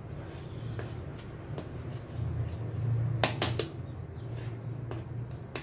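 Kitchen knife tapping and scraping against a plastic measuring cup while leveling off flour, with a pair of sharp clicks about three seconds in and another near the end, over a low steady hum.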